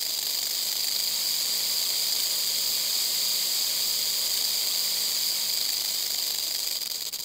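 A rattlesnake's rattle buzzing steadily as a dry, high-pitched hiss.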